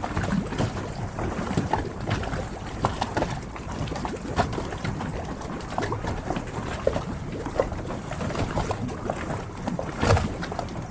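Harbour water lapping and splashing against moored yachts, a steady wash with irregular small knocks and clicks throughout and a louder knock near the end.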